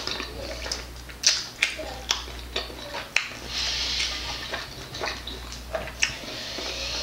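Close-up eating sounds of barbecue chicken wings being dipped and pulled apart by hand and chewed: a run of sharp wet mouth clicks and smacks. A soft hiss rises for a second or two midway.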